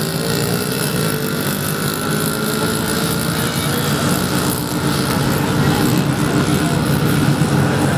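Two pit bikes' small single-cylinder engines running hard at high revs, a steady buzz, as the bikes race down a drag strip.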